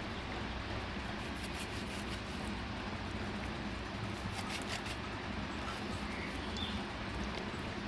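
Steady background hum and hiss, with a few faint scraping strokes of a long knife cutting through a goat's head on a wooden chopping block.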